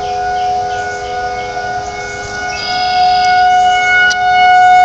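Warning siren being tested, sounding a steady multi-tone wail that holds one pitch. It grows louder a little past halfway, as a higher whine joins in.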